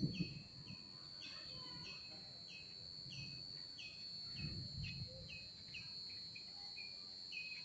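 Outdoor ambience of a steady high-pitched insect drone, with a bird's short calls repeating about twice a second. Two low rumbles on the microphone, one at the start and one about halfway.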